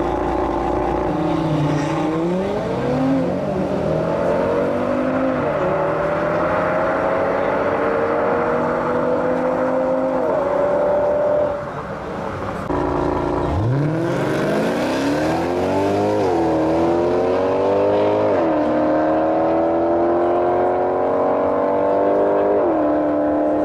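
Audi RS3 8V's turbocharged inline five-cylinder accelerating hard through the gears, its pitch climbing steadily and dropping sharply at each quick upshift. About halfway through the sound cuts briefly, and a second run pulls up from low revs through three more upshifts.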